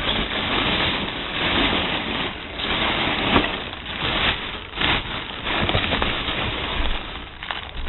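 Packing material and cardboard rustling and crinkling as a box is rummaged through by hand, in irregular bursts.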